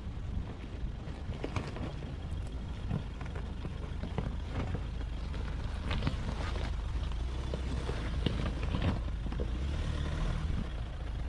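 Mahindra Scorpio SUV on the move: a steady low engine and road rumble, with scattered knocks and rattles over it.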